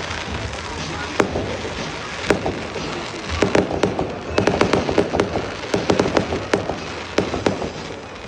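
Aerial fireworks going off: two single bangs, then a rapid volley of sharp reports from about three seconds in until near the end.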